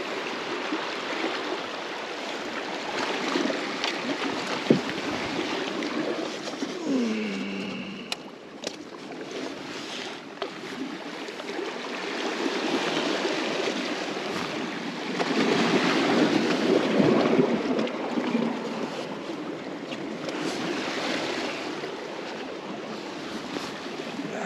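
Sea water washing and surging against rocks at the shoreline, swelling louder about two-thirds of the way through, with a single sharp click about five seconds in.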